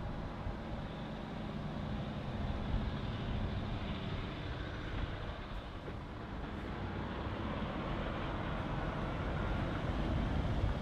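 DAF tractor unit without a trailer driving past at low speed, its six-cylinder diesel engine running under tyre noise and slowly growing louder as the truck approaches and turns by.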